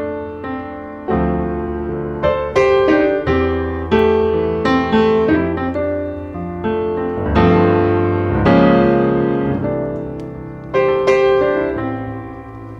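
Background piano music, a slow piece of struck chords and notes that ring and fade.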